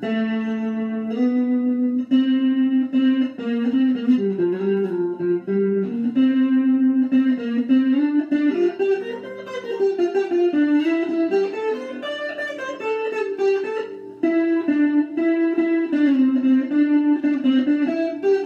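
An electric guitar playing a melodic single-note line, with notes changing quickly and several pitch glides in the middle.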